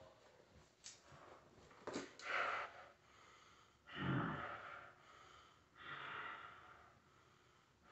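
Faint breathing: a few long, soft exhalations about two, four and six seconds in, with a small click about a second in.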